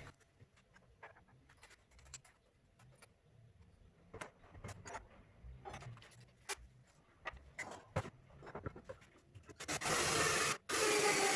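Light scattered clicks and knocks of tools and wood being handled, then near the end a power drill starts up, stops for a moment and runs again, boring holes in wood for T-nuts.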